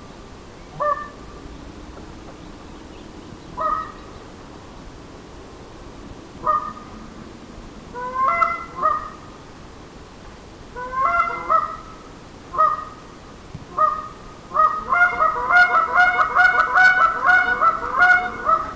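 Ash wood goose call blown in single and double honks a few seconds apart, each note breaking sharply upward in pitch, then a fast run of short notes at about four a second over the last four seconds.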